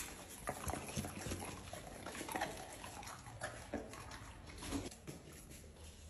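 Shelter dogs in their kennels making brief sounds, with irregular clicks and knocks scattered through.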